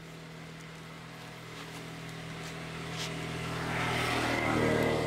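A motor vehicle's engine running and drawing closer, growing steadily louder and loudest near the end.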